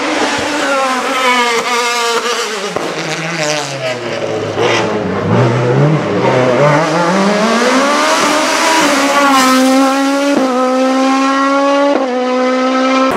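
A sports prototype race car's engine drops in pitch through several downshifts as it brakes into a hairpin, runs low through the corner about five seconds in, then climbs hard as the car accelerates away, with upshifts near the end.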